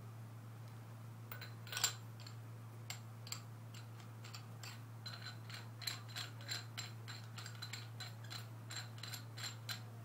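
Barrel being screwed by hand into the threads of a 2011 Proto Rail paintball marker: a faint run of small, irregular metal clicks and ticks that come closer together in the second half, over a steady low hum.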